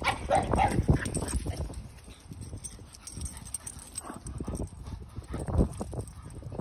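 A Keeshond and a Boston Terrier galloping and chasing across grass, their paws thudding in a fast, uneven rhythm, loudest in the first second.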